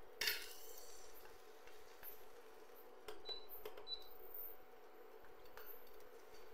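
Induction cooktop humming steadily, with two short high beeps a little over three seconds in as its touch-panel buttons are pressed. A brief clatter near the start and a few light clicks and scrapes come from the utensils on the nonstick pan.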